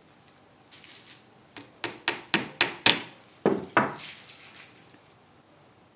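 Claw hammer tapping push pins into a wooden frame through stretched fabric: five quick taps, then two heavier ones after a short pause.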